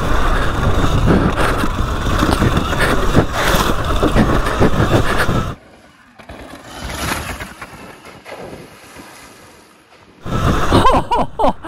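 Wind rush and tyre noise on a helmet camera as a Sur Ron Light Bee X electric dirt bike is ridden flat out over rock. About five and a half seconds in the sound drops to a faint distant ride, then a loud rush returns near the end as the bike splashes through the water.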